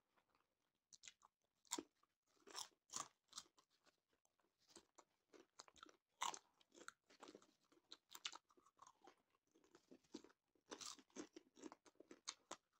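Popcorn being chewed and crunched by two people, close to the microphone: soft, irregular crunches with short pauses between mouthfuls.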